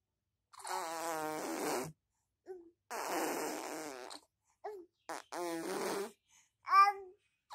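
A six-month-old baby blowing raspberries, three long buzzing lip-trills with a wavering pitch, then a short high squeal near the end.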